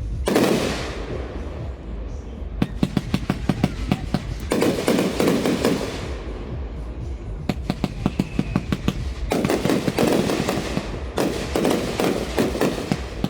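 Fireworks display going off: three runs of rapid crackling reports, each a couple of seconds long, alternating with longer rumbling stretches of bursting shells.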